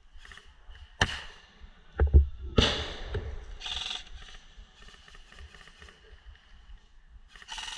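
Airsoft guns firing: sharp cracks about a second and two and a half seconds in, the later one the loudest, then short bursts of shots.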